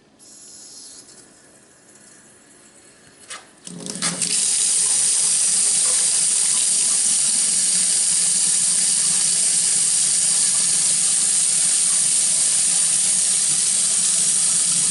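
Delta kitchen faucet turned on about four seconds in, water then running steadily into the sink as the repaired spout is tested. A faint click comes just before the water starts.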